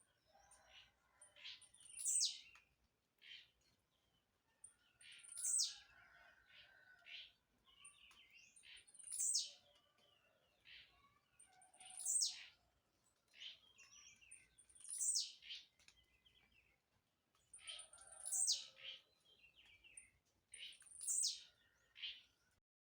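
Blue-black grassquit (tiziu) singing: seven short, high, downward-sweeping song notes about every three seconds, with softer chirps between them.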